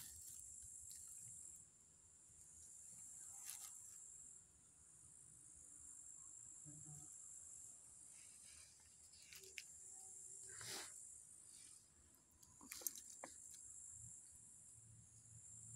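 Faint, steady high-pitched chirring of insects that fades in and out, with a few brief clicks and rustles scattered through it.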